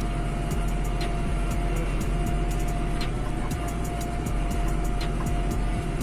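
Hattat 398 tractor's engine running steadily under load, heard from inside the cab, as it pulls a mounted plough through the soil. A thin steady whine sits above the engine drone.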